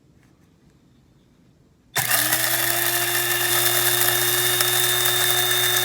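Kaffè electric blade coffee grinder switched on about two seconds in: the motor spins up with a brief rising whine, then runs steadily as the blade chops the coffee beans.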